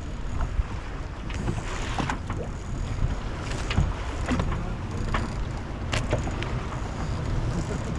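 Sailing yacht under way: a steady low rumble of wind and water, with scattered short clicks and knocks from on board.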